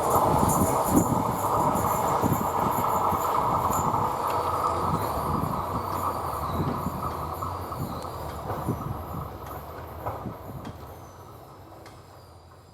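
Indian Railways express train's coaches running past at speed: a steady rumble with repeated wheel clacks over rail joints, fading away as the train recedes.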